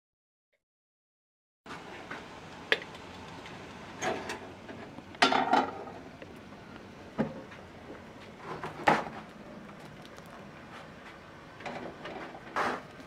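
Hard objects being handled: about half a dozen separate short knocks and clinks over a steady background hiss, starting after a second and a half of silence.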